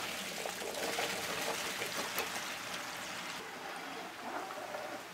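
Small-cut raw plantain pieces dropped into a large vat of hot oil, sizzling and bubbling hard as they deep-fry. The sizzle eases a little over the last second or two.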